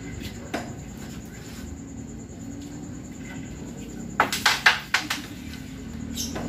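A pool shot: about four seconds in the cue strikes the cue ball, followed within a second by a quick run of sharp clacks as balls knock into each other and the rails. A single faint click about half a second in, over a low steady hum.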